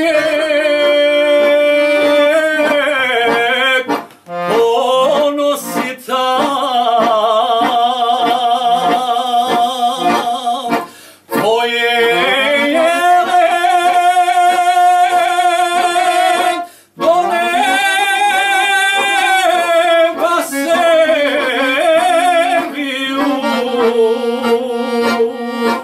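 A man sings a traditional Bosnian sevdah song with long held, wavering notes, accompanied by two piano accordions. His phrases are separated by brief pauses.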